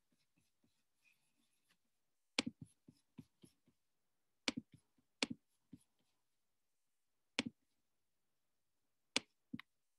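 Faint, scattered clicks of a computer keyboard, a few keystrokes at a time with pauses between them.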